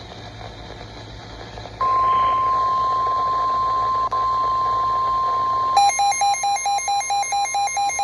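NOAA Weather Radio's steady 1050 Hz warning alarm tone starts sharply about two seconds in. It is the signal that a warning message is about to be read. About six seconds in, an electronic alert beeping joins it at about four beeps a second, while the tone keeps going.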